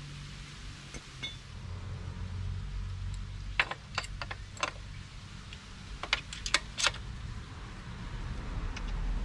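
Sharp metal clicks and clinks from a footpeg, its spring and pivot pin being worked into a KTM's footpeg mount, in two short clusters about three and a half and six seconds in, over a low steady hum.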